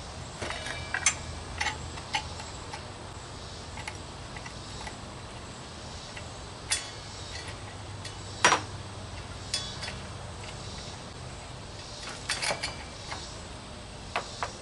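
Scattered sharp metallic clicks and clinks of a budget circular saw's blade bolt, washer and guard being handled as the blade mount is taken apart by hand, the loudest clink about eight and a half seconds in.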